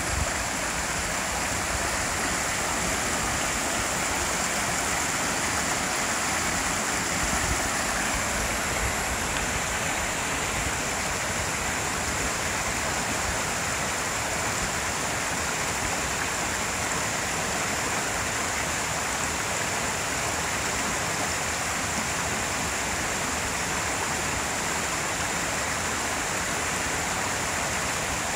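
Mountain stream running steadily over rocks and small cascades.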